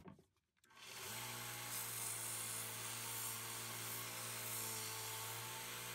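Grizzly belt sander running with a steady hum, with a rubber belt-cleaning stick held against the moving sanding belt to clear the clogged sawdust from it. The sound starts about a second in.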